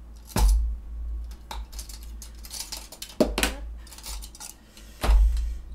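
Small objects being handled and set down on a tabletop: about five sharp knocks and clinks with dull thuds. The loudest come about half a second in and near the end.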